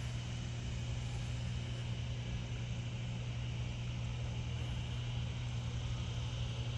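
Steady low mechanical hum over an even background hiss, with a faint, steady high-pitched drone above it.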